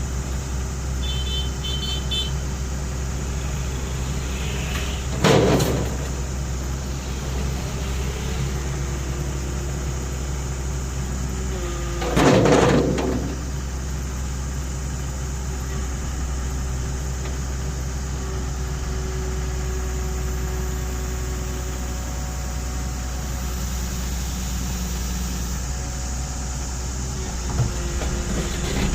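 Excavator diesel engine running steadily, with two brief loud noises, about five and twelve seconds in, from the machine at work.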